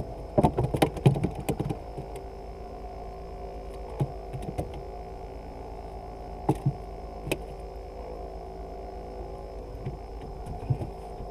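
Hands working at a plastic cooler box and fishing gear in a wooden boat: a quick run of clicks and knocks in the first couple of seconds, then a few single knocks, over a steady hum.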